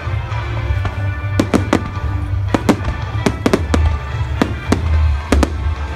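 Aerial fireworks shells bursting in quick succession: a dozen or so sharp bangs, often two or three close together, starting about a second and a half in. Music with sustained tones plays underneath.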